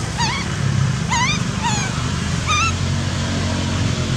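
Baby macaque crying: about six short, high, wavering squeals in quick bunches over the first three seconds. A low steady hum runs underneath.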